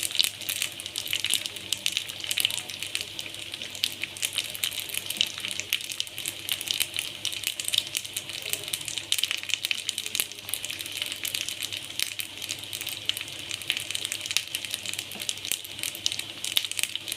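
Hot cooking oil sizzling, with a dense, steady crackle of small pops over a high hiss.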